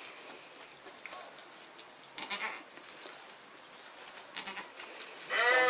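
Soft rustling in straw, then about five seconds in a goat gives one loud, wavering bleat.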